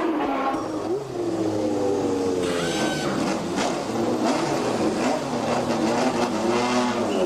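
Formula One car engines running and revving, several engine notes rising and falling in pitch over one another.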